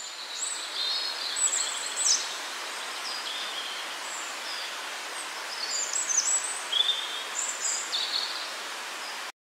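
Forest ambience of birdsong: scattered short high chirps and whistles over a steady hiss, cutting off abruptly near the end.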